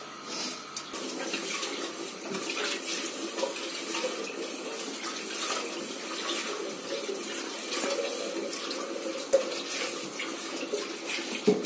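Pot of chicken and potato soup boiling under a glass lid, a steady watery bubbling with many small pops.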